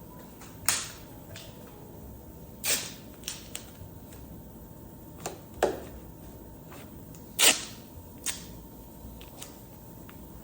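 Masking tape pulled off the roll in short rips, five or six times with a few lighter clicks between, the loudest rip about seven and a half seconds in.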